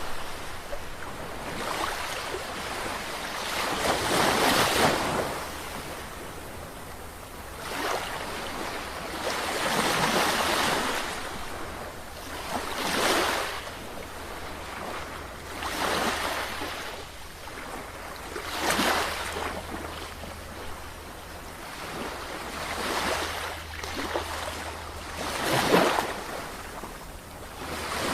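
Sea waves breaking and washing on the shore, a new surge of surf about every three seconds, over a steady low rumble.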